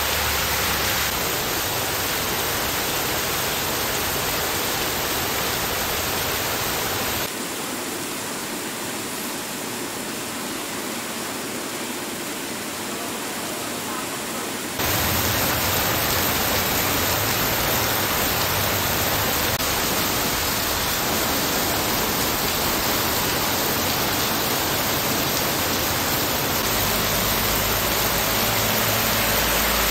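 Heavy rain mixed with hail pouring down in a hailstorm, a steady hiss. It drops in level for several seconds from about seven seconds in, then comes back louder.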